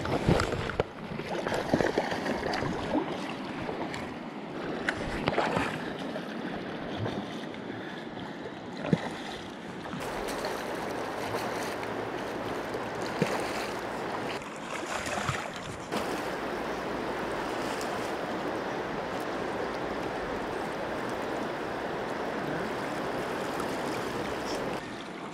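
A fast-flowing river rushing, with wind on the microphone and a few sharp knocks from handling the rod and gear in the first half.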